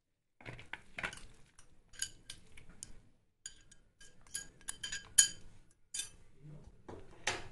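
A glass bowl knocking and scraping against a plastic bowl as grated cucumber is tipped out of it: a string of light clinks and taps, some with a brief glassy ring, the loudest about five seconds in and just before the end.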